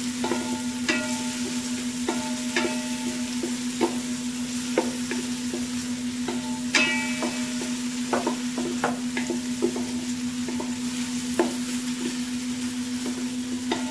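Wooden spatula stirring sliced shallots frying in oil in an aluminium rice-cooker pot: repeated scraping knocks against the metal, several ringing briefly, over a steady hum.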